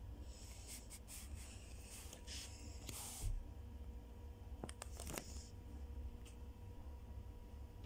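Paper bus timetable leaflets rustling and sliding as they are handled, in short bursts, the loudest a little after three seconds in, with a few light clicks around five seconds.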